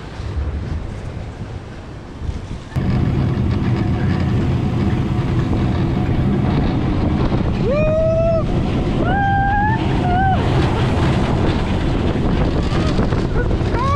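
Roller coaster car running along its steel track, heard from on board: a loud, steady rumble with wind on the microphone that starts abruptly about three seconds in. Two short high squeals come about halfway through.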